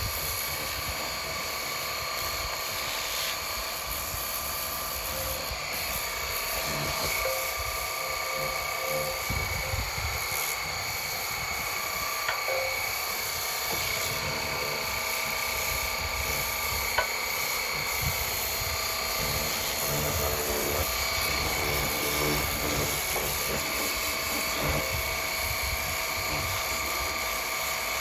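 Cordless battery-powered pressure washer running steadily: its pump motor whines over the hiss of the water jet blasting grass off the underside of a mower's metal cutting deck. There is one sharp click partway through.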